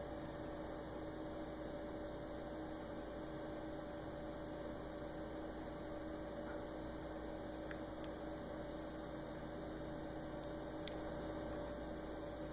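Steady electrical mains hum with a faint hiss, and a couple of faint light clicks, from a pick and tension wrench working inside a small padlock.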